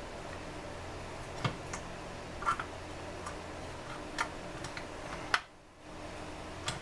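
Scattered light clicks and clinks of small metal parts and tools being handled during reassembly of a chainsaw's top end, about seven in all, the sharpest a little past five seconds in, over a steady low hum.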